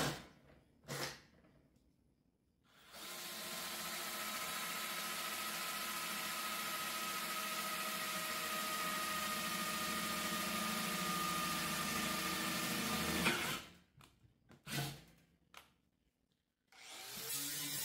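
Handheld power tool working on sheet metal: it runs steadily for about ten seconds and cuts off, a few short knocks follow, and it starts again near the end.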